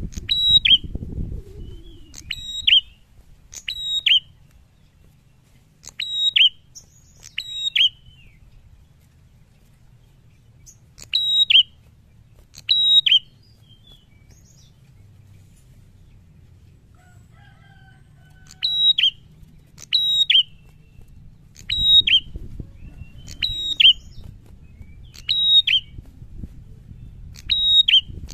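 Prenjak songbird calling: short, sharp, high chirps, each falling quickly in pitch, repeated about every one to two seconds in bouts, with a pause of several seconds in the middle.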